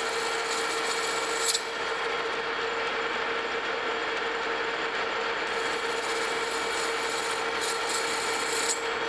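Metal lathe running with its cutting tool taking a light facing cut across the end of a bronze bushing, bringing it down to length. A steady hum under a scratchy hiss from the cut, which drops away for a few seconds in the middle and stops near the end.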